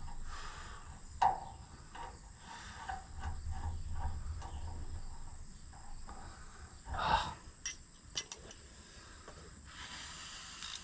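Insects, such as crickets, droning steadily in a high pitch, with scattered light clinks and taps of tools and metal parts being handled during tractor repair work, and one louder knock about seven seconds in.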